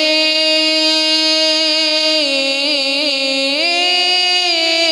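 A man singing an Urdu naat unaccompanied, drawing one word out into a long ornamented note; the pitch steps up about two seconds in and again about three and a half seconds in.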